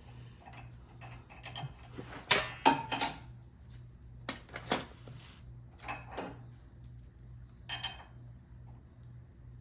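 Metal bolt hardware clinking and knocking against the traction bar bracket as a bolt is worked in from the top, a scattered series of clicks with the loudest two to three seconds in.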